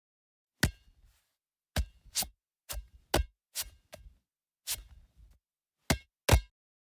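A series of about ten sharp clicks at uneven intervals, each short with dead silence between them.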